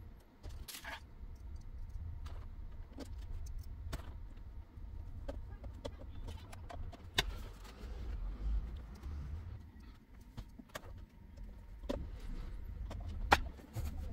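Screwdriver and plastic casing of an all-in-one PC being handled on a desk: irregular light clicks and knocks over a low rumble, with a sharper click just before the end.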